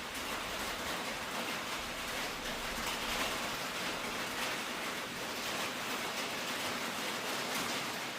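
A steady, even hiss with no distinct knocks or tones.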